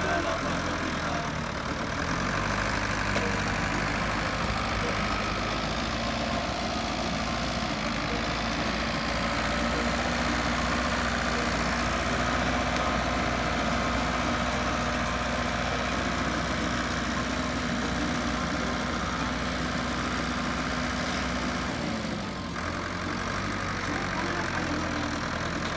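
Tractor engine running steadily while it dredges sand from the channel.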